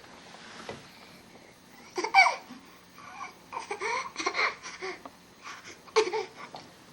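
A toddler babbling and laughing in short bursts, loudest about two seconds in and again near the end.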